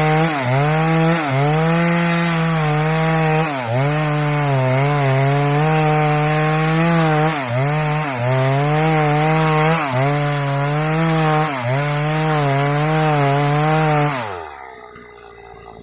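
Stihl MS 381 two-stroke chainsaw running at full throttle while cutting waru wood, its pitch dipping briefly every second or two as the chain bites under load. Near the end the throttle is released and the engine falls to idle.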